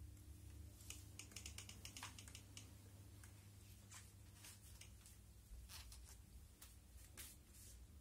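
Near silence: a steady low room hum with faint, irregular light clicks and ticks scattered throughout, some in quick clusters.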